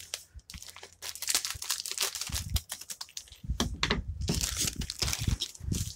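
Clear plastic MRE accessory packet being torn open and crinkled as it is handled, an irregular rustling with some dull low bumps.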